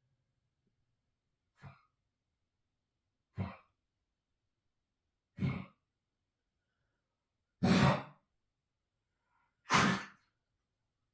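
A pet coughing: five separate coughs about two seconds apart, each louder than the last, the final two the loudest and longest. The cough is the symptom being recorded to show a vet.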